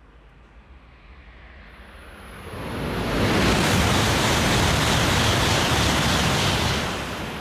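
E5 series Shinkansen passing through the station at high speed without stopping: a noise with no distinct tones that builds from faint over the first two and a half seconds, stays loud for about four seconds as the train goes by, then begins to fade near the end.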